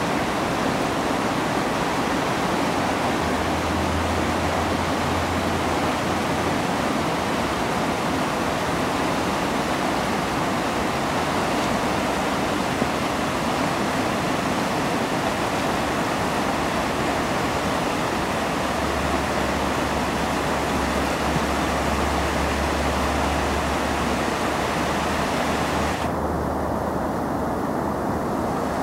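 Mill River in flood: fast floodwater rushing through woodland around tree trunks and debris, a steady loud wash of water noise. A low rumble comes in twice, and the sound turns duller for the last few seconds.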